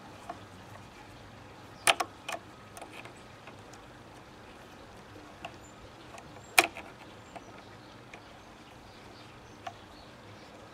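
Pliers working a small part out of the steel action of an Original Model 50 air rifle, giving sparse sharp metal clicks: a quick group of three about two seconds in, the loudest single click a little past the middle, and a few fainter ticks between.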